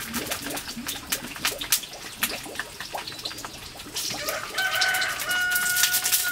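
Sausages frying in a small pan over a wood fire, with a run of sharp crackles and sizzling. A rooster crows once near the end, a held call of about a second and a half.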